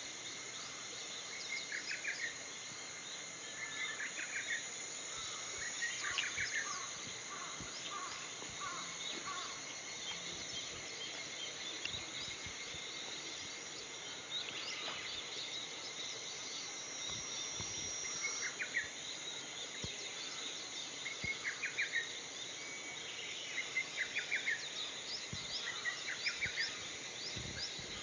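Lesser cuckoo singing its short, rapid staccato phrase over and over, a phrase every few seconds with a gap in the middle. Many small high chirps of other birds and a constant high hiss run underneath.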